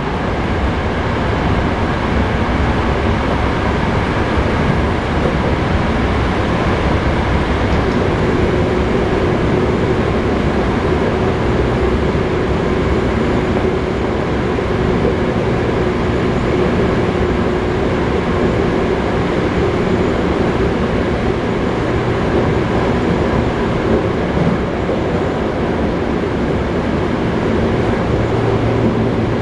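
Cabin running sound of a Toei 5300 series electric train travelling steadily at speed: a constant rumble of wheels on rail and running gear, with a steady hum through the middle stretch.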